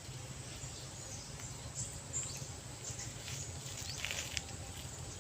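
Outdoor riverside ambience: a steady low rumble with faint, scattered high chirps and light ticks, a few ticks bunched together about four seconds in.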